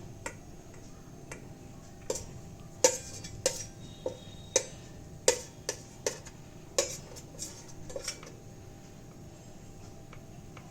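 A dozen or so light, irregular clicks of a utensil tapping against a plate while a breadcrumb-coated chicken cutlet is pressed into shape; they stop about eight seconds in.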